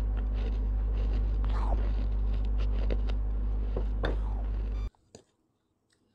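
Steady low electrical hum with faint rustling and small clicks from fingers handling a foam-covered lavalier microphone; about five seconds in it cuts off abruptly to near silence, with one faint click after.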